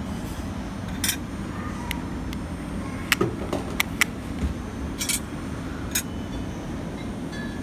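Several sharp metal clinks and taps from stainless buffet chafing dishes and their lids and serving utensils, over a steady low rumble of room noise.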